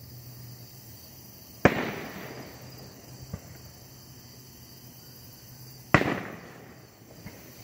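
Aerial fireworks: two loud sharp bangs about four seconds apart, each trailing off over about a second, with two much fainter pops between and after them.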